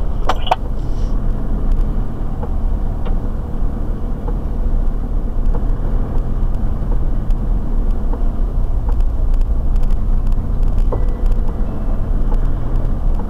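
Four-wheel drive on a dirt track heard from inside the cabin: a steady low engine and tyre rumble, with faint ticks and rattles now and then.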